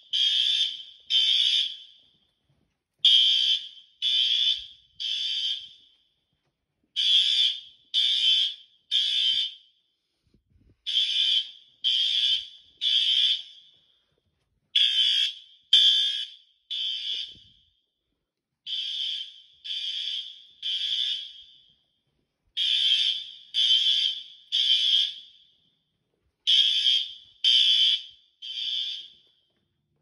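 Fire alarm horn-strobes sounding the temporal-three evacuation signal: three high-pitched horn blasts of about half a second each, then a pause of about a second and a half, repeating every four seconds. The building's fire alarm system is in alarm, being tested during an inspection.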